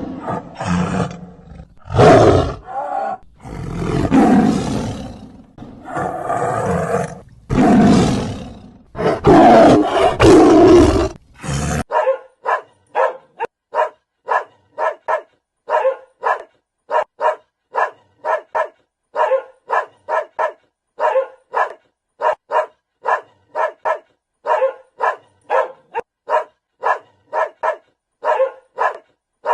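A lion roaring, a series of long loud roars, for about the first twelve seconds. It then gives way abruptly to a dog barking over and over in a steady rhythm, about two barks a second.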